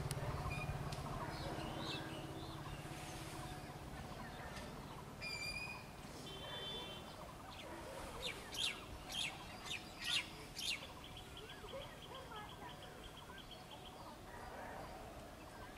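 Birds calling: a short pitched call, then a run of sharp chirps that are the loudest sounds, then a rapid, even trill. A low rumble fades away over the first few seconds.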